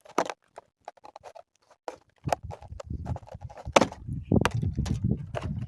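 Packaging being handled and opened by hand: scattered sharp clicks and knocks, then, a little over two seconds in, a denser run of rustling, bumping and knocking.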